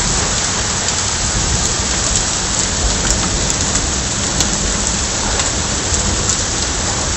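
Heavy rain pouring onto a flooded street, a loud steady hiss with scattered sharper drop hits.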